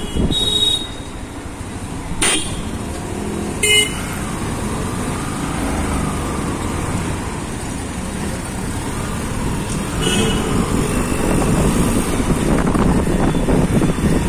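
Road traffic heard from a moving motorcycle: a steady rumble of engines and wind on the microphone. Short vehicle horn toots come about half a second in, near four seconds and around ten seconds, and the traffic noise grows louder in the last few seconds.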